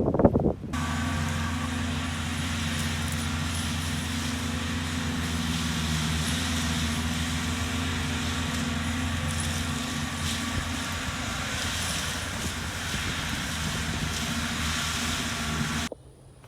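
Skid steer running steadily with its mulching drum attachment, an even, unchanging machine sound that cuts off suddenly near the end. A brief louder pitched sound comes right at the start.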